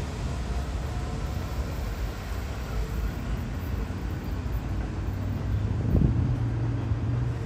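Staten Island Railway R44 subway train moving slowly along the station platform: a steady low rumble of wheels and motors. About six seconds in there is a brief, sharper sound, followed by a steady low hum.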